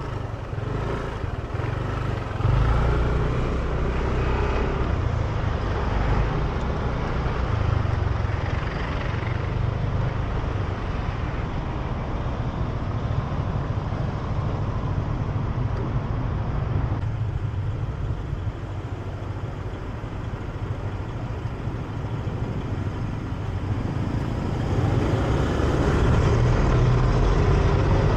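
A motor scooter riding through street traffic, its engine and road noise steady throughout and growing louder near the end.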